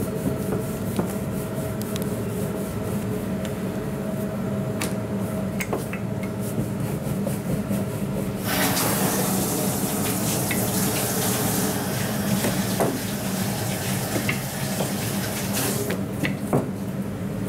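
Wooden rolling pin rolling chapati dough on a stainless-steel counter, with scattered light knocks, over a steady machine hum. About halfway through, a loud steady rushing hiss starts suddenly and stops again near the end.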